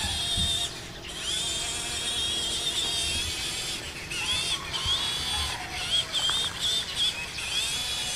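MN99 1:12 scale RC crawler's small electric motor and gearbox whining high as it drives on concrete, the whine dropping out and coming back in short surges several times as the throttle is eased and pulsed.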